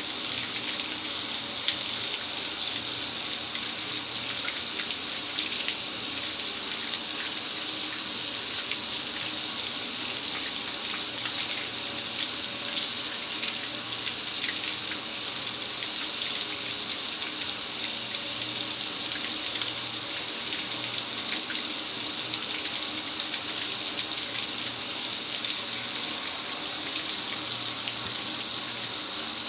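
Garden hose spray nozzle sending a steady jet of water onto the lid of a gas grill: a continuous, even hiss of spray and splashing with no break.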